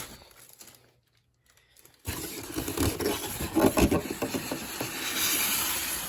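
Packing material being rubbed and scraped as fan parts are handled in and out of their box, starting about two seconds in, with a few knocks in the middle.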